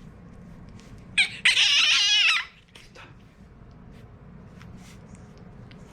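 French Bulldog puppy giving a short yip about a second in, then a loud, wavering whine lasting about a second.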